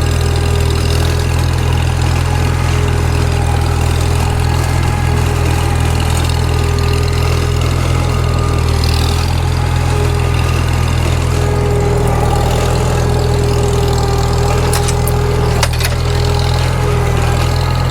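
Farmall Super M tractor's four-cylinder engine running steadily and loudly while pulling, with a steady note riding above the engine drone.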